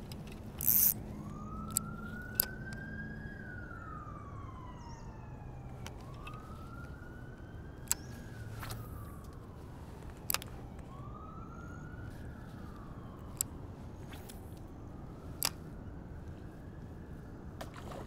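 A distant siren wailing, each wail rising then slowly falling, four times over, above a steady background hiss. A few short, sharp clicks fall here and there, the loudest just after the start.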